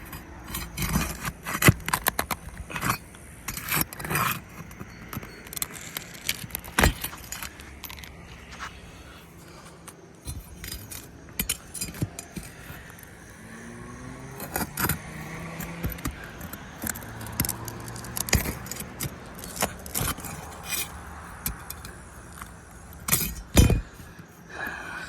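Metal pry bar tapping, clinking and scraping against roofing nails and asphalt shingles as the nails are worked loose and pulled out, in an irregular string of sharp clicks and scrapes.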